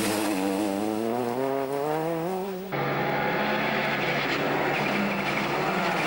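Rally car's turbocharged four-cylinder engine accelerating hard, its pitch climbing steadily for about two and a half seconds. It then switches abruptly to the engine running at steady high revs.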